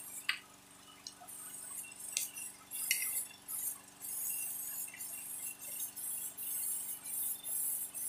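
Small clicks and clinks of wire connectors and a test lamp being handled and touched together, with a faint rustling, over a low steady hum.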